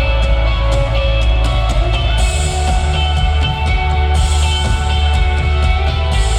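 Rock band playing live: a drum kit keeping a steady beat, about four hits a second, under sustained electric guitar and bass, loud.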